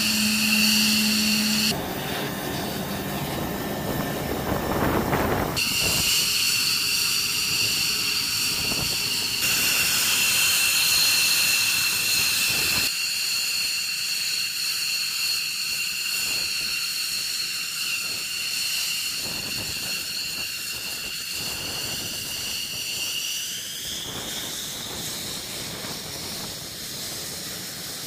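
F-15E Strike Eagle's twin jet engines running on the ground: a steady high-pitched turbine whine over a loud hiss. The sound jumps abruptly several times. Near the end the whine rises a little in pitch.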